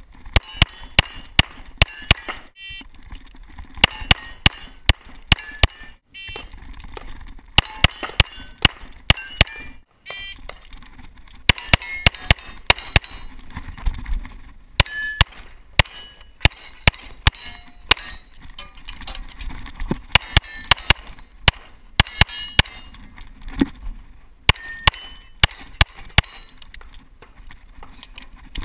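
STI Edge .40 S&W pistol firing rapid strings of shots, the shots coming in quick clusters broken by short pauses between target arrays.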